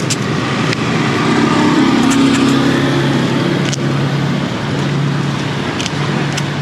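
A motor vehicle engine running steadily with road noise, its hum holding a steady pitch.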